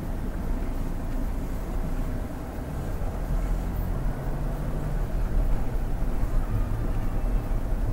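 Toyota Fortuner GR-S on the move, heard from inside the cabin: its 2.8-litre 1GD-FTV turbo-diesel engine runs under tyre and road noise, a steady low rumble.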